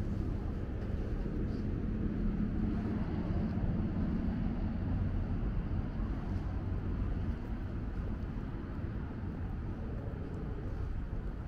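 Steady low rumble of distant road traffic, swelling slightly a couple of seconds in.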